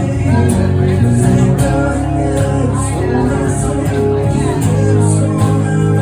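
Loud band music with guitar and a steady beat.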